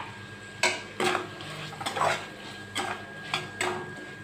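Steel ladle stirring chopped tomatoes in a metal kadai, knocking and scraping against the pan in an irregular string of clinks about every half second.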